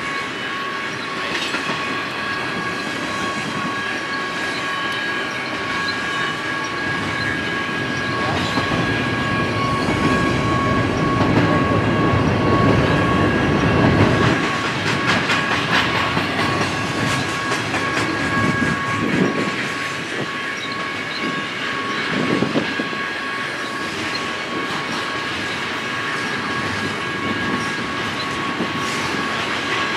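Double-stack intermodal freight train rolling past: a steady rumble of loaded well cars, with wheels clattering over rail joints and two steady high ringing tones above it. The rumble swells for a few seconds about ten seconds in.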